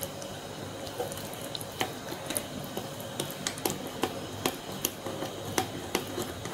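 A metal spoon stirring thick chocolate cake batter in a ceramic cup, with repeated light clinks of the spoon against the cup, irregular, about two or three a second, over a faint wet stirring sound.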